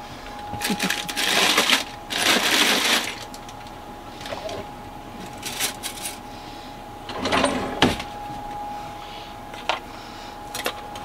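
Wooden kitchen drawer opened and rummaged through for a knife: cutlery and utensils rattling and clinking, with rustling early on and a louder knock near the eight-second mark. A faint steady tone sits underneath.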